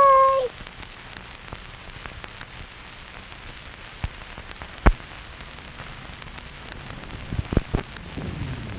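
A child's held sung note breaks off, leaving a steady hiss like rain with a few sharp clicks. Low crackling rumbles build near the end.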